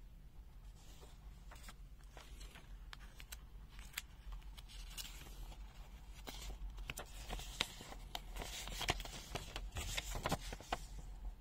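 Small clicks and rustling from a handheld digital multimeter being handled and worked, getting busier about halfway through.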